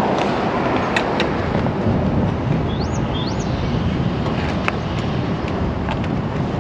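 Steady outdoor noise with a low rumble, broken by a few light clicks, and two short rising chirps about three seconds in.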